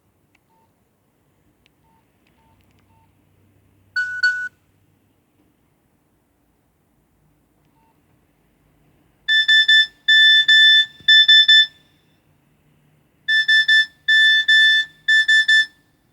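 Nokia 6300 mobile phone playing a ringtone: a short single electronic tone about four seconds in, then a repeating ring pattern of three quick pulses, a pause, and three more.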